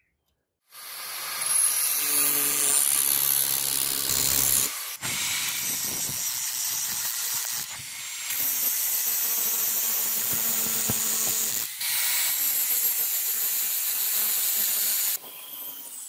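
Angle grinder grinding a spring-steel knife blade held in a vise: a loud, harsh grind over the motor's steady whine. It starts about a second in and breaks off sharply a few times.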